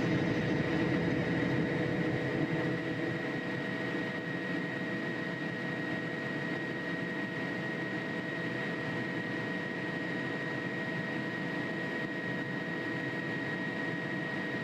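Jet airliner engines running: a steady rumble with a high, even whine, easing a little over the first few seconds and then holding.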